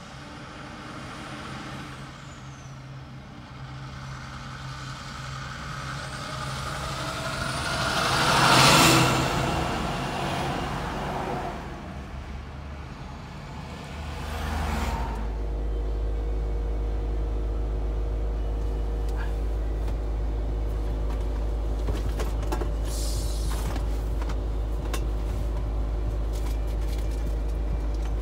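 Heavy diesel trucks: a Kenworth prime mover approaches and passes close, its sound swelling to a loud rush about nine seconds in and fading. After a change partway through, a truck engine idles with a steady deep hum.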